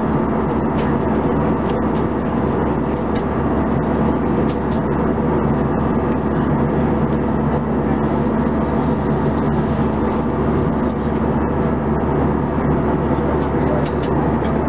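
Steady cabin noise of an Airbus A320-214 in cruise: the rush of air along the fuselage and the drone of its CFM56-5B engines, with a steady low hum.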